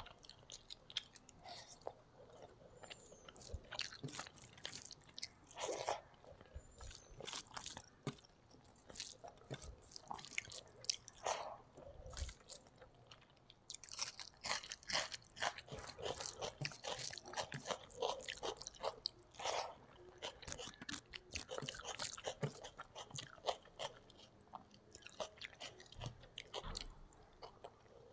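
Close-miked chewing of rice and spicy fish curry eaten by hand: a continuous, irregular run of wet mouth clicks and small crunches.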